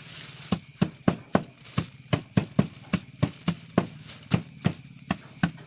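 Wrapped hammer pounding fresh turmeric root inside a plastic bag, striking in a steady rhythm of about two to three dull knocks a second.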